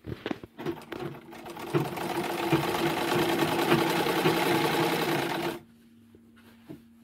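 Gloria sewing machine stitching a hem in white cotton: a few clicks as it starts, then it picks up speed into a steady fast run and stops suddenly about five and a half seconds in.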